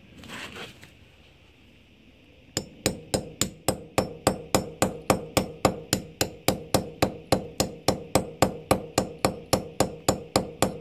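Claw hammer tapping a nail held against a brick, a fast steady run of light blows, about four to five a second, starting a couple of seconds in. It is chipping a small indentation into the brick face so the masonry drill bit won't wander when drilling starts.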